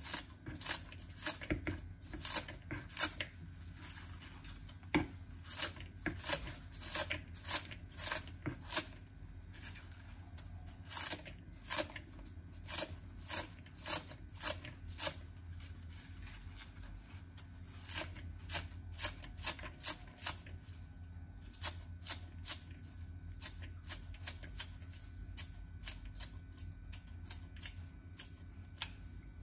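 Kitchen scissors snipping a bunch of spring onions into small pieces, a run of sharp snips about one to three a second with short pauses between runs.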